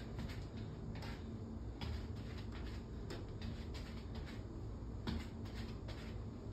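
Sneakers stepping on a tile floor during a home workout: irregular light taps, roughly one or two a second, over a low steady hum.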